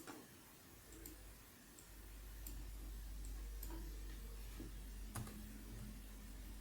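Faint scattered clicks over a low hum from a CNC router at work on a printed circuit board, with a steady low tone starting about five seconds in.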